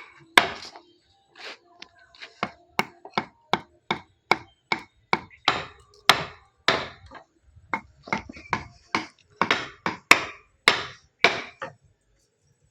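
Hammer blows on wood, a long run of quick, uneven strikes about two to three a second, stopping about a second before the end.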